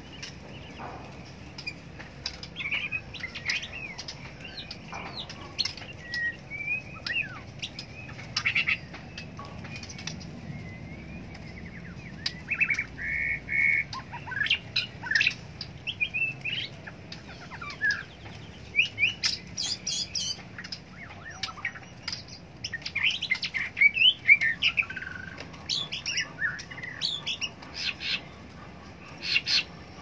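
Several caged white-rumped shamas (murai batu) singing: many short whistled phrases, chirps and trills from more than one bird, sometimes overlapping, with sharp clicks mixed in.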